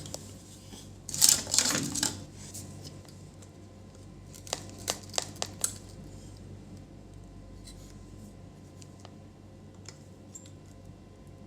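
A brush scrubbing dust off a monitor power supply circuit board: a few scratchy strokes in the first two seconds, then a handful of light clicks and taps about halfway through.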